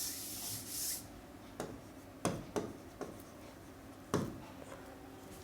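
Writing on a board: a short rubbing, scratching stroke in the first second, then a handful of light, separate taps or clicks.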